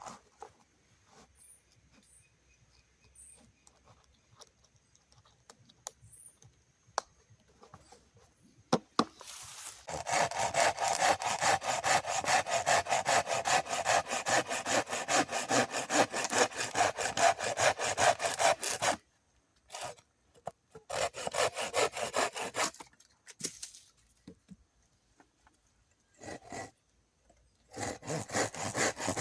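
Hand saw cutting through wood in rapid back-and-forth strokes. It starts about ten seconds in, after a stretch of near quiet with a few small knocks, runs steadily for about nine seconds, then comes back in shorter spells near the end.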